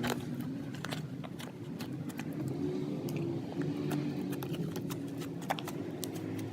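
Homemade slime being squeezed and played with by hand, giving scattered small sticky clicks and pops over a low, steady rumble.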